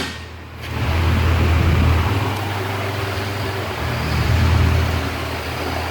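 Steady low hum of running machinery with a noisy hiss over it, swelling slightly and easing off a few times.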